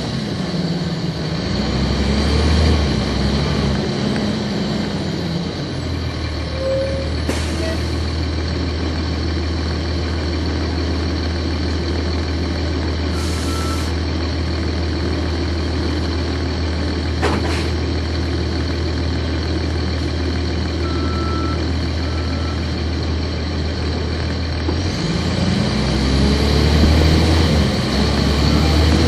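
Cummins ISC diesel engine of a Nova Bus RTS transit bus, heard from the back of the cabin. It runs higher at first, settles to a steady low idle about five seconds in, with a few short hisses, then revs up again near the end as the bus pulls away.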